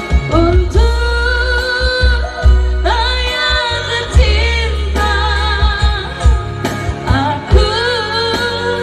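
A woman singing long, wavering held notes into a microphone, backed by electronic keyboards with a pulsing bass line, amplified through a PA system.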